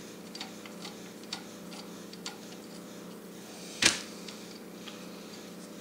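Light metallic ticks and clicks of a screwdriver backing a small screw out of a Carter BBD carburetor's air horn, with one louder clack a little under four seconds in as the screwdriver is set down.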